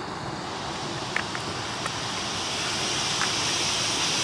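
Miniature steam locomotive, a scale Merchant Navy-class 4-6-2, hissing steam from low at the front beside the cylinders, growing louder about halfway through. A few sharp clicks sound in the first half.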